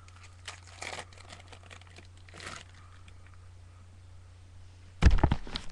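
Trading-card pack wrapper crinkling in the hands, with two brief rustles, then a loud ripping burst near the end as the pack is torn open. A steady low electrical hum runs underneath.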